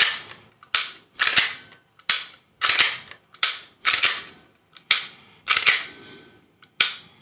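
Glock 17 slide on a 3D-printed frame racked back and snapped forward over and over, with the trigger dry-fired in between: a string of about ten sharp mechanical clacks in seven seconds. Each cycle marks the trigger resetting, which it now does every time.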